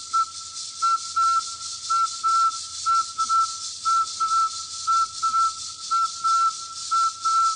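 Rainforest ambience: a steady, rapidly pulsing high insect buzz, with a pure whistled note at one pitch repeated over and over, in short notes about two a second.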